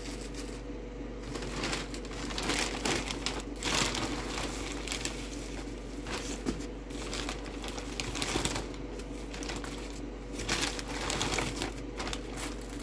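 Plastic packaging crinkling and rustling as it is handled and unwrapped, in irregular bursts.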